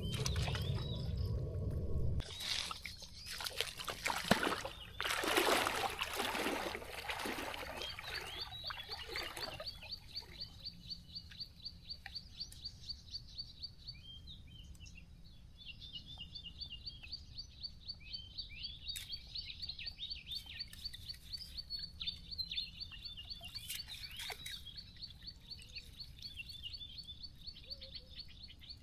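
Water splashing and sloshing as a mesh shrimp trap net is swished and rinsed in shallow pond water, loudest in the first ten seconds and softer after. A rapid high-pitched chirping runs in the background from about eight seconds in.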